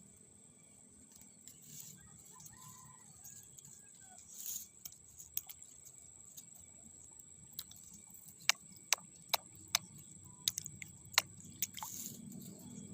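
Steady high-pitched insect drone, with a run of sharp, irregular clicks or taps in the second half, about eight in four seconds.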